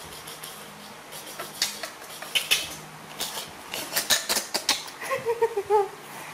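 Irregular sharp clicks and knocks as the hard plastic toy crocodile and the bedding are handled by a baby monkey. Near the end comes a short, wavering vocal sound.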